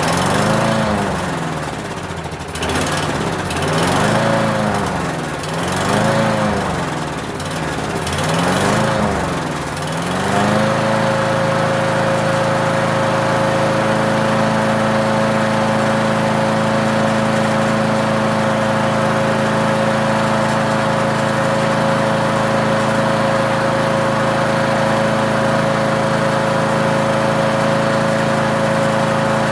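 Lawn mower engine just started on choke, its speed surging up and down about every two seconds, then settling to a steady run about ten seconds in.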